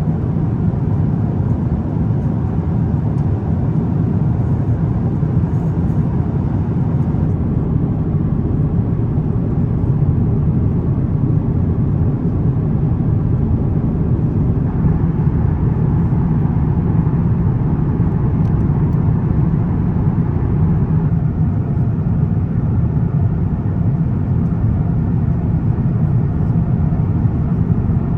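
Steady cabin noise aboard an Airbus A350-900: a constant low rumble of engines and airflow.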